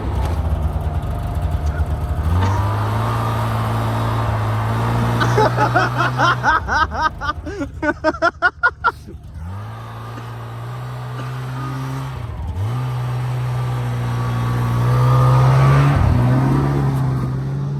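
Snowmobile engine running under load and revving up several times as it tries to drive out of deep snow where it is stuck. A few seconds of rapid pulsing come in the middle.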